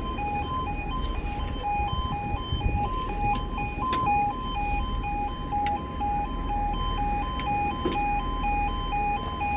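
Level crossing two-tone yodel alarm sounding as the barriers lower, switching rapidly back and forth between two pitches and cutting off right at the end. A few faint clicks sound over it.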